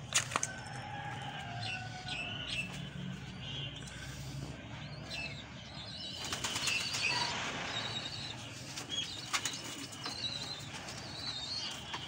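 Pigeon wings flapping and clapping in several short bouts, the loudest just after the start and another cluster past the middle, while small birds chirp in short calls throughout.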